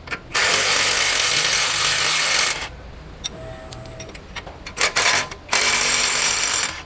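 Cordless impact wrench hammering on a steering rack clamp bolt: one long run of about two seconds, two short blips about five seconds in, then another run of just over a second.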